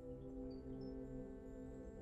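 Soft ambient background music of steady, sustained tones.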